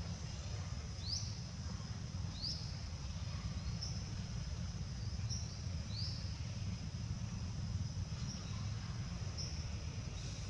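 Birds chirping: short, high, upward-sweeping chirps repeated every one to few seconds, over a steady low rumble of wind or outdoor noise.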